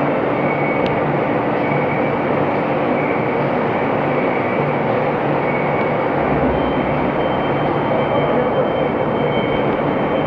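CNC horizontal boring mill running in a machine shop: a loud, steady mechanical din. A thin high whine comes in about six and a half seconds in.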